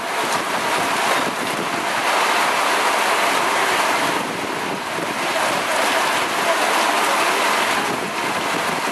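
Heavy thunderstorm downpour: a loud, steady rush of rain pouring down, rising and falling slightly in strength.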